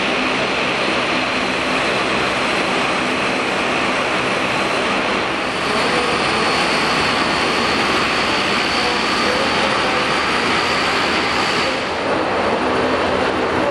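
Boeing 767 jet engines running with a steady rushing noise and a high whine. The whine grows stronger about five and a half seconds in and eases near the end.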